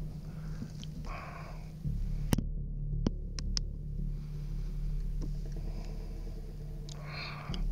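A steady low hum with several sharp clicks and two short rustling, breathy bursts. The clicks and rustles are a handheld night-vision camera being handled close to its microphone.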